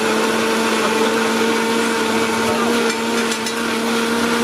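Electric blender running steadily at speed, its motor giving a steady whine as it blends watermelon chunks into juice.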